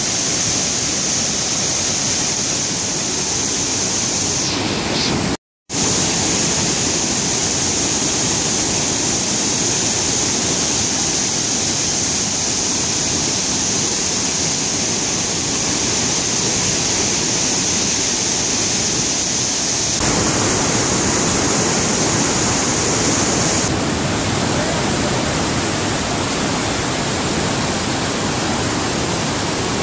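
Floodwater released through a river barrage's gates, rushing and churning below the weir in a loud, steady wash of noise. The sound cuts out for a split second about five seconds in, and is deeper and fuller from about twenty seconds in.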